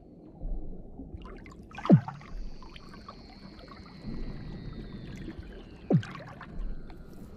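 Weddell seals calling underwater beneath the sea ice: two sharp sweeps dropping steeply from high to low pitch, about two seconds in and again about six seconds in, with a long thin whistle gliding slowly downward between them.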